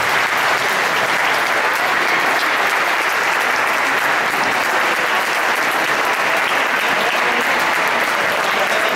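Audience applauding steadily, a dense patter of many hands clapping with no let-up.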